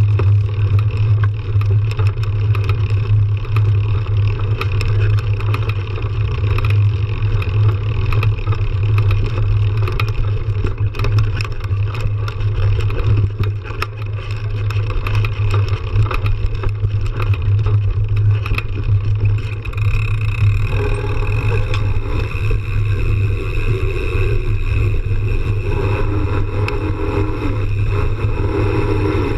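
Mountain bike being ridden over a dirt trail: a steady low wind rumble on the bike-mounted camera, with constant small rattles and crunches from the tyre and bike over the rough ground.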